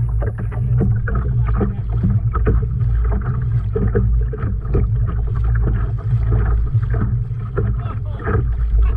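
Boat motor running steadily while trolling, with many short knocks over the steady hum.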